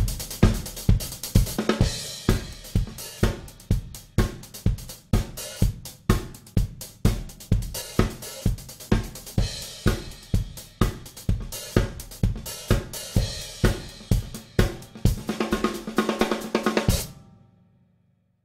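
Drum kit groove featuring a Basileia Heritage 14-inch hi-hat, with kick and snare strokes about twice a second under the hi-hat. The playing gets busier near the end, then stops and rings away.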